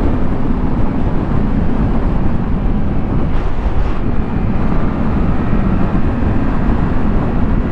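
Heavy wind rush on the microphone at high speed over a 2019 Yamaha MT-07's parallel-twin engine held hard on the throttle in a top-speed run. A faint engine note climbs slowly in the second half.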